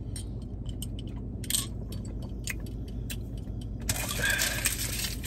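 Light clinks and clicks of small glass soda bottles being handled and drunk from, over a steady low hum inside a car. About four seconds in comes a second or so of hissing noise.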